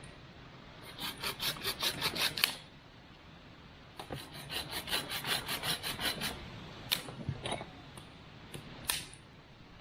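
Quick rasping strokes in two runs of about a second and a half each, about six strokes a second, as kindling is worked for a campfire, followed by a few separate sharp clicks.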